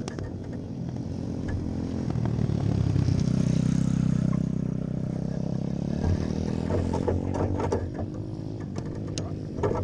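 Grass kart engine running while the kart sits stopped, rising in pitch and loudness about three seconds in and easing back a couple of seconds later. A run of sharp knocks and rattles follows near the end.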